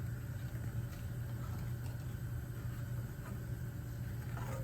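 Steady low hum, with a few faint taps.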